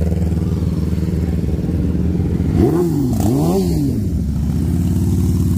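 Sport motorcycle engine idling steadily, blipped twice in quick succession about halfway through, the pitch rising and falling with each rev.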